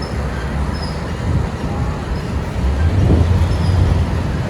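Low engine drone and road noise of a vehicle moving in traffic, easing slightly about a second and a half in and swelling again about three seconds in.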